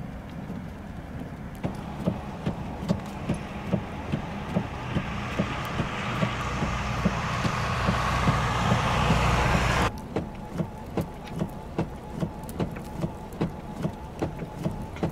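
A box truck driving on a snow-covered road, its engine and tyre noise swelling as it comes closer, then cutting off abruptly about ten seconds in. A regular ticking, about two ticks a second, runs under it throughout.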